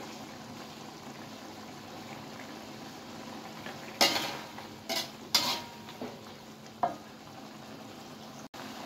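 Tauco fish stew simmering with a steady low sizzle in an aluminium wok. From about four seconds in, a metal ladle knocks sharply against the wok four times as the fish and spring onions are stirred.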